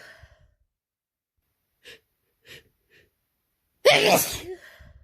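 A person with a head cold sneezing: three short catching breaths, then a single loud, messy sneeze about four seconds in.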